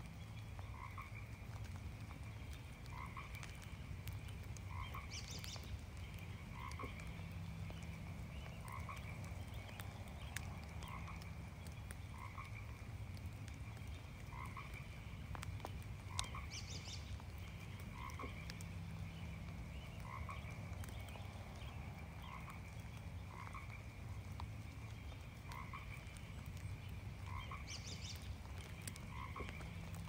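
Frogs calling in a steady chorus, short croaks repeating about once every second or so, over the faint patter of light rain in a forest. A brief, higher-pitched call breaks in three times.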